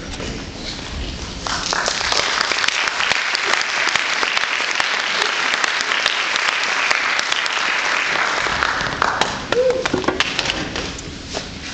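Audience applauding: the clapping swells about a second and a half in, holds steady, then dies away after about nine seconds into a few scattered claps.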